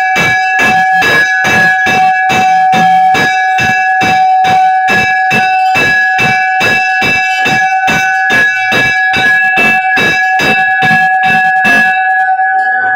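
Brass temple bell struck over and over in a fast, even rhythm, about three strikes a second, its ring sustained between strikes. The striking stops about a second before the end, leaving the ring to fade.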